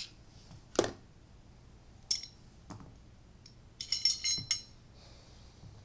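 Steel parts of a Glock 17 pistol handled during takedown: a sharp metallic click about a second in, two lighter clicks, then a quick run of ringing metal clinks about four seconds in.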